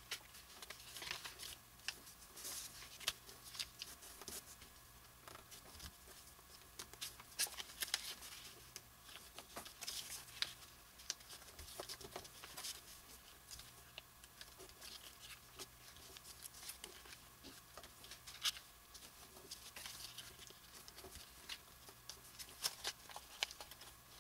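A paper strip being folded and creased by hand: faint, scattered rustles and crisp little clicks as fingers handle the paper and press along the folds.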